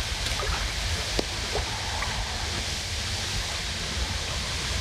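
Steady wind buffeting the microphone outdoors, a low rumble with a hiss on top, with a few faint ticks, one a little sharper about a second in.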